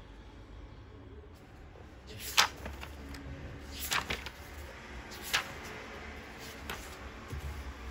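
A few sharp, brief knocks of small objects being handled and set down, about four spread over several seconds, over faint room tone.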